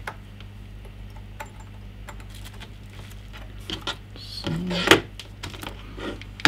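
Light clicks and clatter of a computer mouse and keyboard being picked up and set down on a desk, with a louder knock about five seconds in, over a steady low hum.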